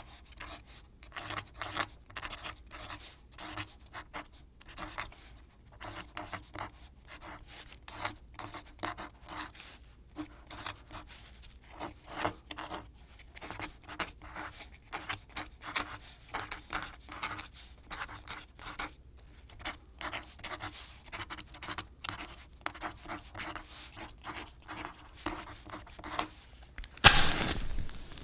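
A rapid, irregular run of small close-up clicks and scratches, several a second, broken near the end by a louder rushing noise about a second long.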